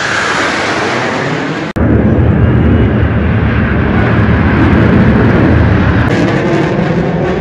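Military jet aircraft flying overhead in formation, a loud steady jet roar. The sound drops out abruptly just under two seconds in and comes back louder and deeper.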